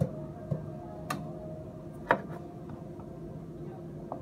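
About five sharp, separate knocks and clicks on a wooden counter, the first as a metal cocktail shaker tin is set down and the loudest about two seconds in, over a steady low hum.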